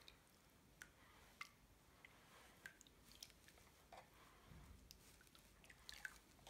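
Faint small splashes and drips of water as bare feet move and rub against each other in a basin of foot-bath water: a scattered run of soft wet clicks and sloshes, a few of them close together near the end.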